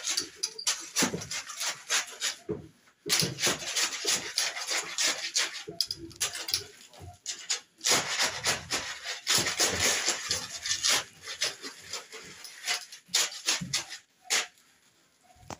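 Steel shovel scraping and chopping through a pile of dry sand-and-cement concrete mix on a hard floor, in repeated strokes with short pauses, dying down near the end.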